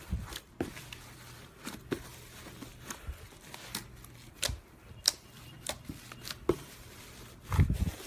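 A hand pressing and kneading fluffy pink foam slime in a tub, making irregular sharp crackling pops and squelches, with a heavier squish near the end. A faint steady low hum runs underneath.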